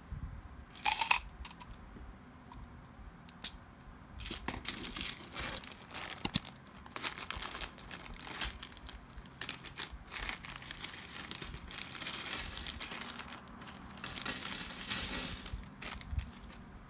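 Handling small crochet supplies: metal tapestry needles clink together in the hand about a second in, then a thin plastic zip bag of plastic stitch markers crinkles and rustles, with sharp little clicks, as it is opened and the markers are tipped out onto a wooden desk.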